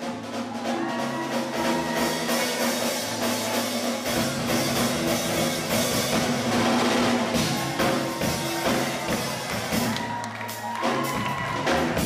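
Live steel band playing: steel pans sounding the melody over a drum kit keeping a steady beat, the bass and drums filling in fuller about four seconds in.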